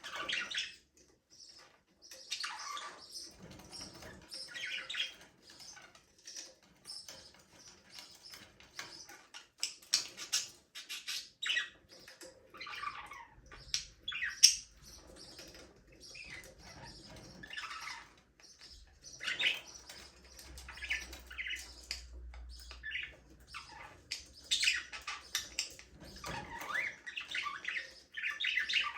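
A group of budgerigars chirping and chattering in short bursts, with clicks, sharp squawks and the occasional flutter of wings.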